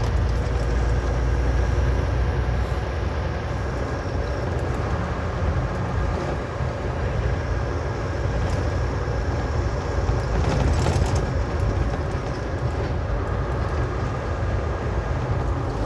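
Steady engine and road rumble inside the cab of a semi truck cruising on the freeway, heaviest in the low end, with a faint steady whine above it.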